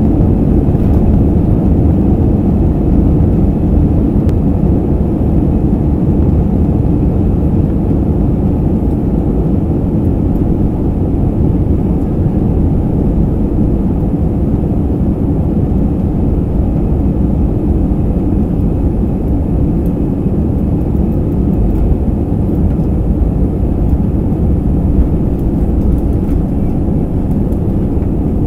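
Jet airliner's engines and runway rumble heard from inside the cabin during the takeoff roll: a loud, steady, deep rumble.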